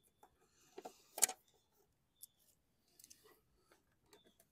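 Scattered small clicks and taps of hands fitting screws and a plastic cover on the underside of a walk-behind lawn mower, with the sharpest click about a second in.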